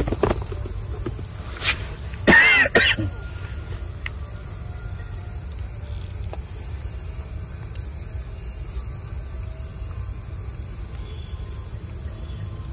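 Insects, crickets or cicadas, buzzing steadily at a high pitch. About two seconds in, a short, loud, wavering high call cuts in, with a couple of sharp clicks just before it.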